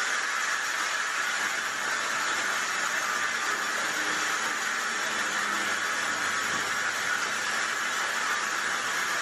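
Capstan lathe running steadily with a hiss-like whir while a metal component is turned.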